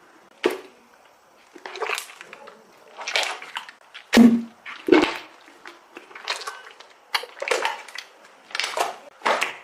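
Slime being squeezed and pressed by hand: a series of about ten short squishy, crackly squelches, roughly one a second.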